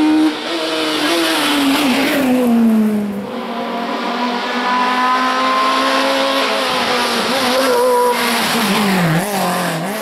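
Hillclimb race car engine at high revs, its pitch dropping in steps about one to three seconds in as it brakes and shifts down for a hairpin, then held steady at lower revs. Near the end the pitch dips briefly and rises again as it comes back on the throttle.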